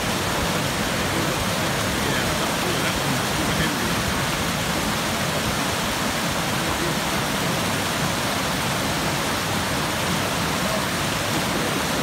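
Water pouring over a low concrete dam into a churning plunge pool: a steady, unbroken rush of whitewater.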